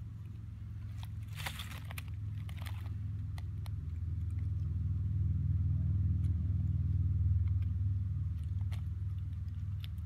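A steady, distant engine rumble that swells through the middle and eases off toward the end. Brief crackling of dry leaf litter comes about a second in and again near the end.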